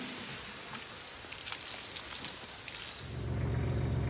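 Water hissing from a hose spray nozzle onto a hanging pig carcass. About three seconds in it gives way to a tractor engine idling with a steady low hum.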